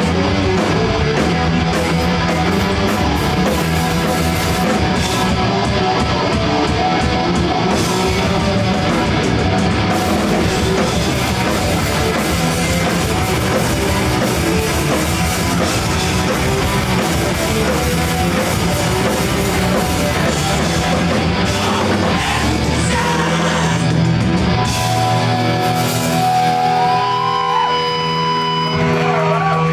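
Hardcore punk band playing live at full volume: distorted electric guitars, bass and drums, with shouted vocals. In the last few seconds the drums drop out and held guitar notes ring on as the song winds down.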